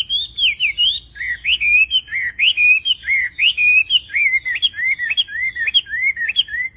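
Chinese hwamei singing a fast, varied song of loud whistled notes, each slurring up and down, about three a second without a break.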